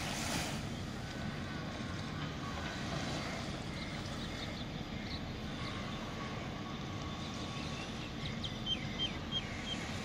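Steady wind on the microphone, with a stronger gust at the very start and four short high chirps near the end.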